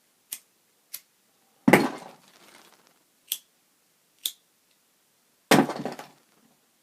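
Lighters being handled: four short, sharp clicks, and twice a louder clatter of lighters knocking against other lighters in the pile.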